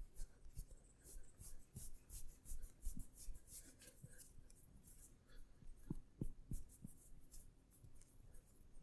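Massage hands rubbing over skin and hair: a run of short, faint, scratchy rubbing strokes, with a few soft low thuds of patting about six to seven seconds in.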